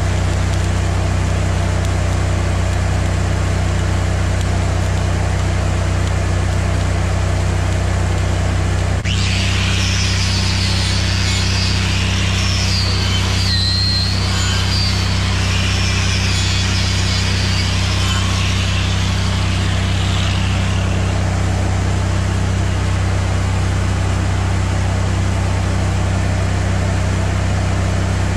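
Wire-feed welder crackling while welding steel on a mower deck. About nine seconds in, an angle grinder starts up and grinds the weld for about twelve seconds, then stops. A steady low drone runs underneath throughout.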